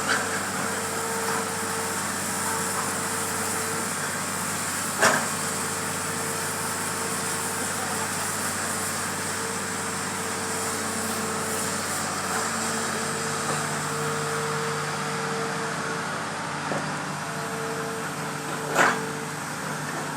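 Hitachi excavator running steadily, a continuous engine drone with a higher steady tone that comes and goes. Two sharp knocks sound, about five seconds in and near the end.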